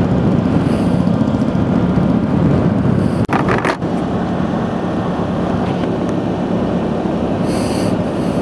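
Motor scooter riding along at road speed: steady engine drone and road and wind noise, with a brief knock a little over three seconds in.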